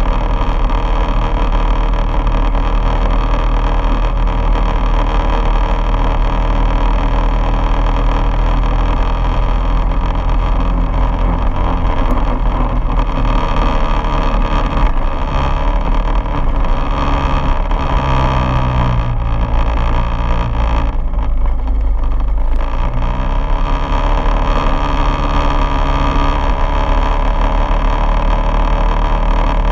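Quad bike engine running as the bike rides along, loud and steady. The engine note shifts about halfway through and eases off briefly around two-thirds of the way in before picking up again.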